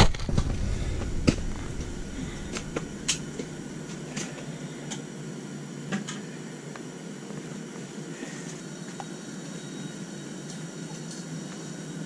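Boots crunching on snowy ice close by at the start, then a steady hiss with occasional small clicks and taps.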